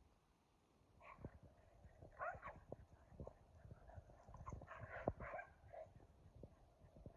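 Faint sounds of a Keeshond dog running in zoomies across grass. Scattered soft thumps are heard with a few short dog vocal noises, starting about a second in and clustering around two and five seconds in.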